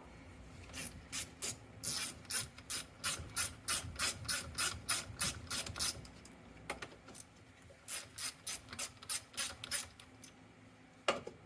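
Hand ratchet wrench clicking in two quick runs, about four or five clicks a second, as bolts are backed out of a Sherman forward-reverser transmission cover, then a single knock near the end.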